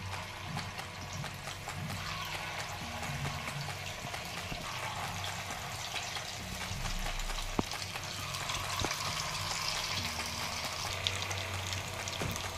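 Potato-and-varai bhaji batter deep-frying in hot oil: a steady sizzling and bubbling, with a couple of sharp clicks partway through.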